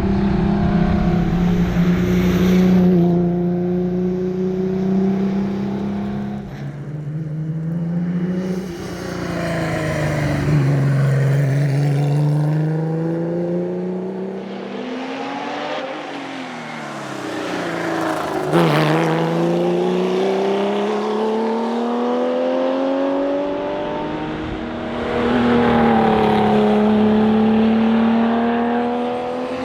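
Porsche 911 RSR's flat-six engine under hard racing acceleration. Its pitch climbs repeatedly and falls back as it is shifted through the gears or lifted for corners, with a sharp crack about two-thirds of the way through.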